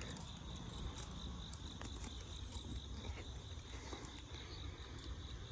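Crickets chirping steadily, with a low rumble beneath and a few faint clicks.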